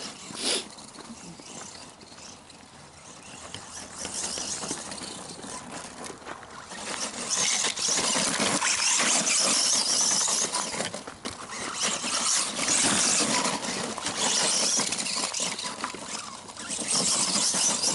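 ECX Ruckus 1/10 electric RC monster truck running on a 2S LiPo: motor and drivetrain whine mixed with the hiss of tyres on hard frozen dirt. It is quieter for the first few seconds, then louder and busier as it is driven hard.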